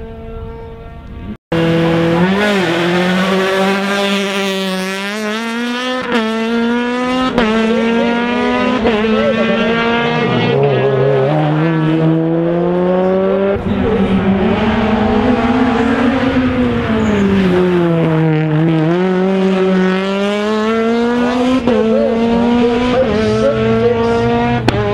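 Honda Civic Type R R3 rally car's engine revving hard through a run of upshifts as the car comes up the road, then falling in pitch twice as it brakes and downshifts, before revving up again out of the corner.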